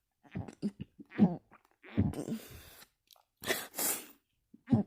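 A person burping with the mouth closed: four short, low burps roughly a second apart, with a noisy breath out around three and a half seconds in.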